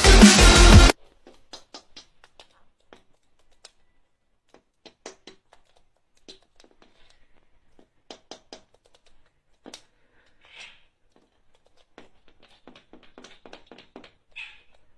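Electronic dance music with a heavy beat cuts off abruptly about a second in. After that, faint, irregular clicks and taps in a small, quiet room, with two short soft rasps near the end.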